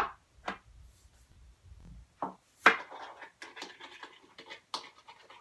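A utensil clicking and scraping against a bowl as a dish-soap and salt slime mixture is stirred, in short irregular strokes with the sharpest knock a little under three seconds in.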